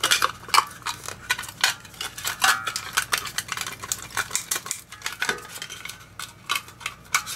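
Corroded pieces of a dead zinc-carbon lantern battery clinking and scraping on a metal tray as they are broken apart and handled: an irregular run of sharp clicks and rattles.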